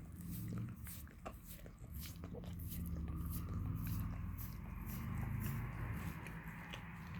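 A mixed-breed dog licking a person's foot right at the microphone: a rapid run of wet smacking and tongue clicks.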